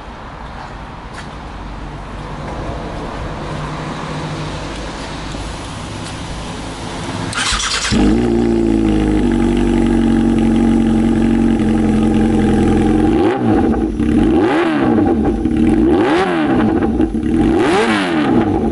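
Yamaha XJR1300's air-cooled inline-four, through titanium four-into-one headers and an SC Project silencer, starting up about seven seconds in and settling to a steady idle. Near the end it is blipped five times, about once a second, each rev rising and falling.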